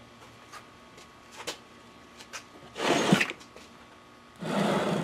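Handling noise of wooden sand-casting flasks and a sand core on a wooden workbench: a few light taps, then two short scraping or sliding noises, the second running into the end.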